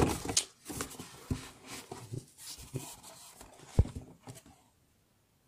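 Cardboard box being opened and handled: scattered scrapes and taps of cardboard, with one sharper knock nearly four seconds in.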